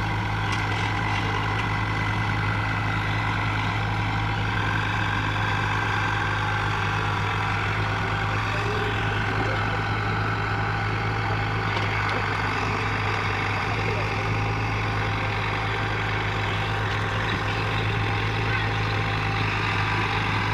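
Heavy diesel engine running steadily at a constant, low speed, with no revving or change in pitch.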